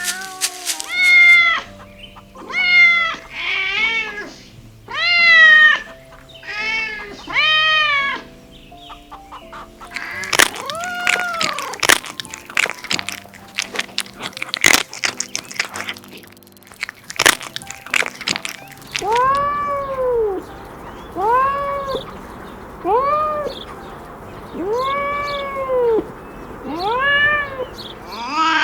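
Kittens meowing again and again, each call rising and then falling in pitch, higher-pitched in the first part and lower later. Background music plays under them, and a run of sharp clicks comes through the middle.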